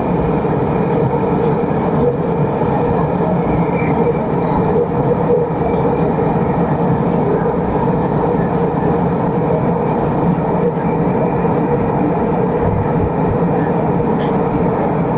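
Gas brazing torch flame burning with a steady rushing noise while heating refrigerator copper tubing for brazing.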